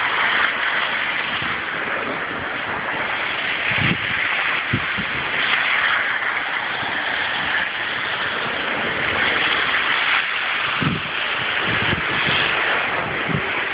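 Blizzard wind blowing as a loud, steady hiss, with a few low gusts buffeting the phone's microphone.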